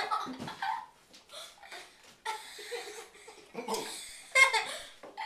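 People laughing in short, breathy bursts.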